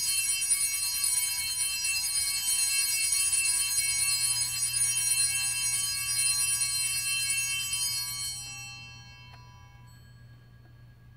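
Altar bells rung at the elevation of the chalice after the consecration: a cluster of small bright bells rings with a shimmering, wavering loudness for about eight seconds, then dies away.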